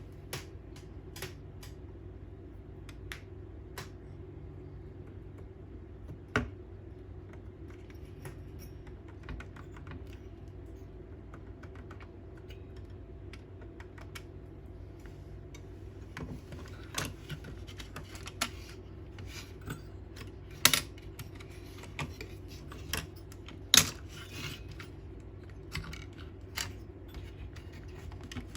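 Scattered light clicks and taps of computer hardware being handled on a desk, with a few sharper snaps, over a steady low hum.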